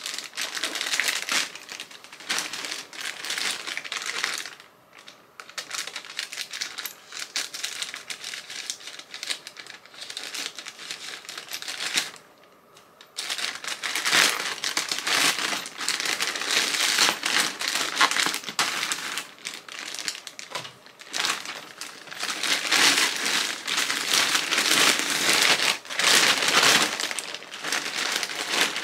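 White plastic poly mailer bag crinkling and rustling as it is opened and handled, with two short pauses about five and twelve seconds in.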